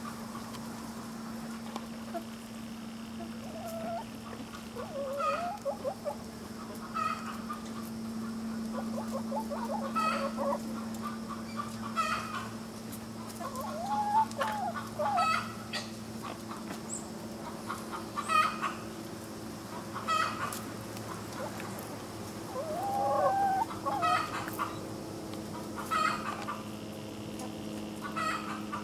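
A mixed flock of hens clucking while they feed on a raw fish carcass, with short clucks every second or two and a few longer drawn-out calls. A steady low hum runs underneath.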